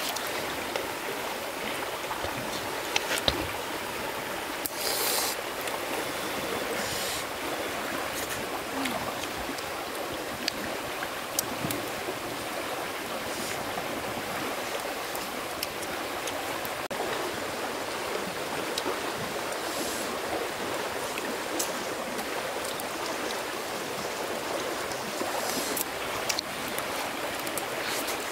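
Running water of a stream, a steady rush, with a few sharp clicks and brief hissing bursts scattered through it.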